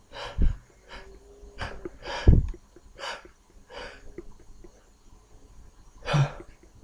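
A man with a head cold sniffing and breathing sharply through a congested nose while a sneeze tickles but does not come. About six short bursts, the loudest a little over two seconds in with a low thud, another near the end.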